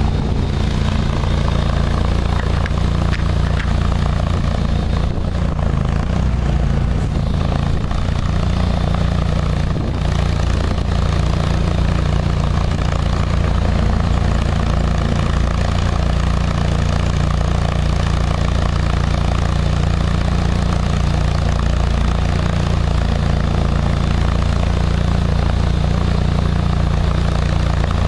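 Gas engine of a truck-mounted pressure washer running steadily at constant speed.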